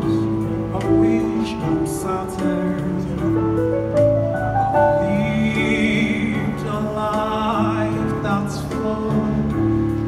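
A man singing into a handheld microphone, amplified through a PA, over music with sustained chords. A rising run of notes comes about four seconds in, and a held note with vibrato around six seconds.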